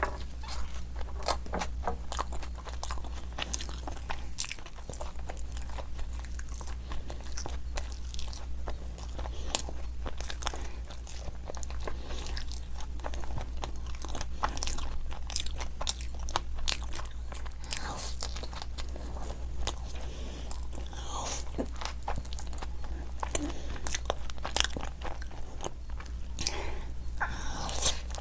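Close-miked mouth sounds of someone biting and chewing crisp fried snacks, a dense, irregular run of crunches and wet chewing clicks.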